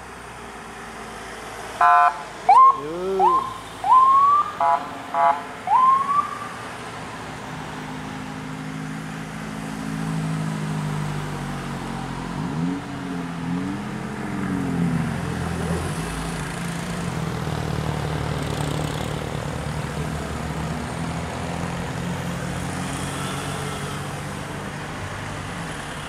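An escort car's police-style siren chirps in about six short rising whoops, mixed with a couple of buzzy beeps. Then the engines of a passing convoy hum steadily in road noise, one rising and falling in revs for a moment about halfway through.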